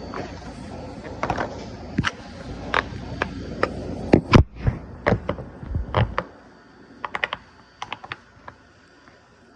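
Quick, irregular clicks and taps from a hand-held plastic fidget toy being played with. A low handling rumble lies under the first six seconds, after which the clicks go on more faintly.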